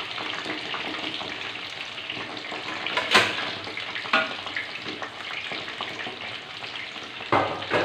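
Ketupat palas, glutinous rice parcels wrapped in palm leaves, frying in a wok of hot oil: a steady crackling sizzle. It is broken by a sharp metal click about three seconds in, the tongs against the wok, and a louder rush of noise comes in near the end.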